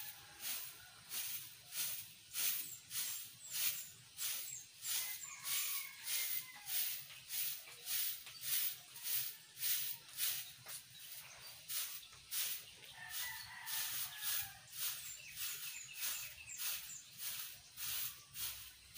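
A stick broom sweeping cut grass clippings across a lawn, a steady run of scratchy swishes about two strokes a second. A rooster crows faintly twice, about five and thirteen seconds in.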